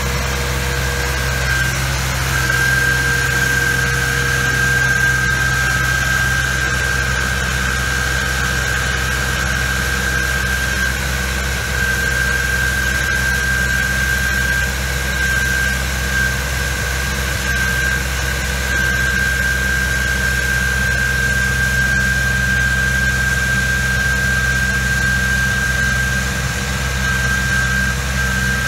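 Engine of a Vermeer Flextrac tracked crawler running steadily under the operator's hydraulic work, with a constant high whine over the engine hum.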